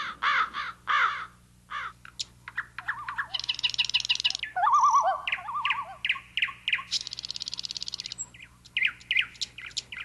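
A string of different bird calls one after another: repeated harsh calls at first, a buzzy rattle, a few slurred whistles, then a fast even trill and more short chirps, over a faint steady low hum.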